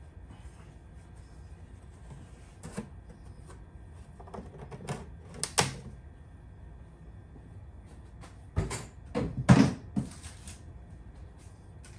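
A few scattered knocks and clatters of a plastic motor-oil jug being handled and set down. The loudest, heaviest thuds come about two-thirds of the way in.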